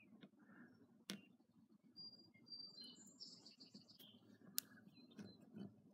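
Near silence: room tone with two faint sharp clicks, one about a second in and one about four and a half seconds in, and some faint high chirping in the middle.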